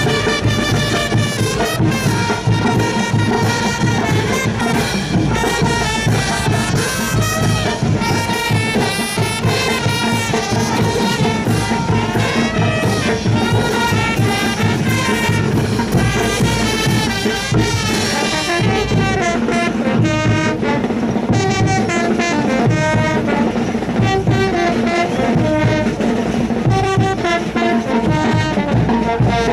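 Brass band music with a steady beat, trumpets and trombones playing an upbeat caporales dance tune.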